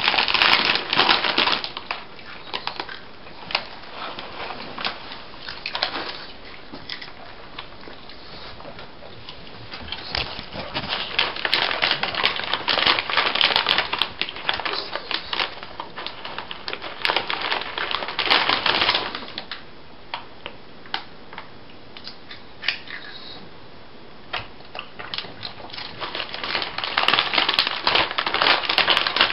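Plastic snack bag crinkling and rustling as a small child's hands rummage in it, coming in several bursts with quieter stretches between.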